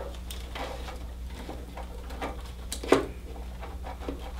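Light scattered clicks and taps of small hardware being handled, with one sharper click about three seconds in, over a steady low hum.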